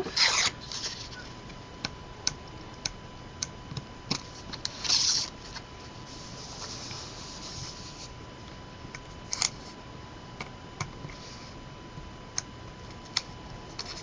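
Tape backing being peeled off cardstock and the paper being handled and pressed down: two short rasping peels, one just after the start and one around five seconds in, among scattered light clicks and taps. A faint steady high hum runs underneath.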